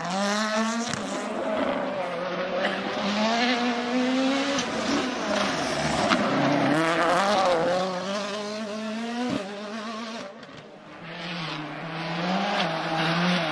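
Ford Fiesta rally cars driven flat out in succession, engines revving up and dropping with each gear change, with some tyre scrubbing. One sharp crack comes about nine seconds in, then the sound dips briefly before the next car climbs through its revs.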